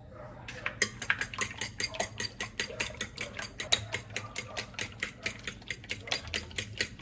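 Rapid, even kitchen knocking, about five or six strokes a second, starting about a second in: a utensil striking repeatedly, as in food prep.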